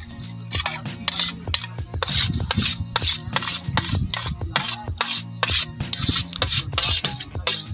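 A hand scraping dry mash (urad) lentils across a steel tray, a gritty rasp in repeated strokes two or three a second, as the lentils are swept off into the cooking pot.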